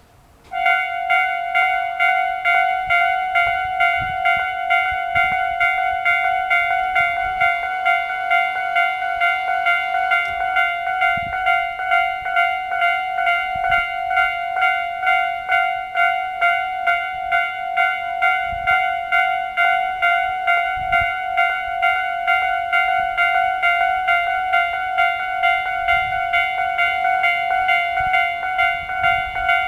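Japanese railway level crossing warning bells on both sides of the crossing, starting about half a second in and ringing in a steady electronic 'kan-kan' at about two strikes a second, their normal standard tone.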